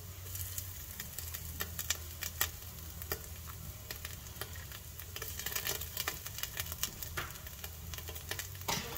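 Chopped onions frying in olive oil in a frying pan: a steady sizzle with frequent small crackles and pops.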